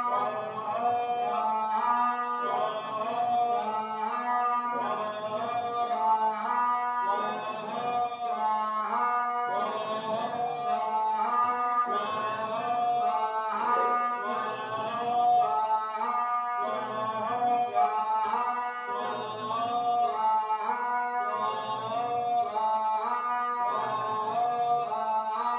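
Devotional song: a male voice singing over instrumental accompaniment, with a steady low drone and a regular rhythm.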